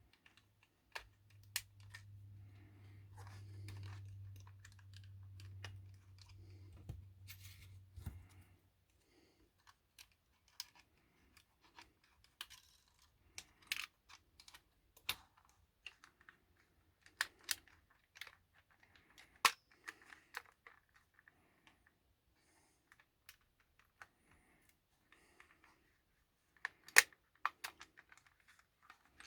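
Scattered small plastic clicks and taps from prising the body shell of an OO-gauge model locomotive off its chassis with a strip of plastic card. A low hum runs under the first eight seconds or so.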